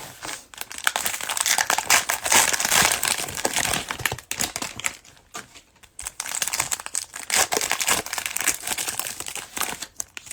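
Cellophane wrapper of a basketball trading-card cello pack crinkling as it is torn open and crumpled, in two spells of a few seconds each with a short lull about halfway through.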